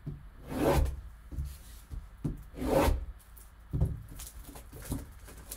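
Clear plastic shrink wrap being cut and peeled off a sealed cardboard trading-card box. The plastic rustles and rubs against the box in several short swells, with a few sharp clicks.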